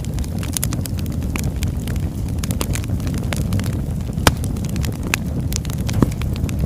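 Birch logs burning, crackling and popping over a steady low roar of flame, with two louder sharp snaps about four and six seconds in.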